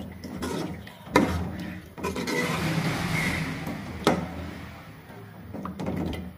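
Metal spoon stirring minced meat and mutton in water in a cooking pot, knocking sharply against the pot twice, about a second in and about four seconds in. Between the knocks the hot liquid hisses and bubbles.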